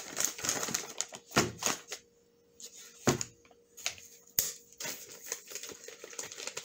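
Plastic meal pouches crinkling and rustling as they are handled, with a few sharp clicks and knocks.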